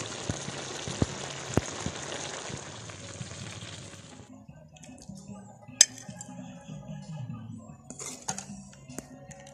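A wok of curry boiling with a steady hissing bubble, a spatula tapping the wok now and then. About four seconds in the hiss cuts off, and a metal spoon clinks against the wok and a ceramic plate a few times as the curry is served.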